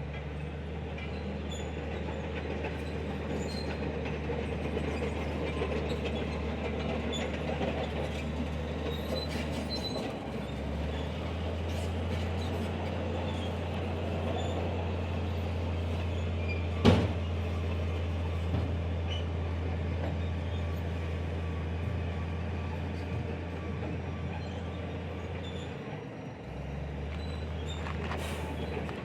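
Heavy diesel engine of earthmoving equipment running steadily as a deep drone. Its note drops briefly about a third of the way in and again near the end. A single sharp metallic knock stands out a little past the middle.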